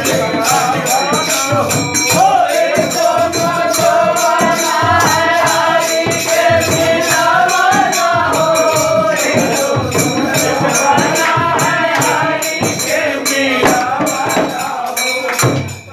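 Men singing a Holi folk song together, accompanied by a dholak barrel drum beaten in a quick, even rhythm and a steady metallic jingling percussion. The music dips briefly at the very end.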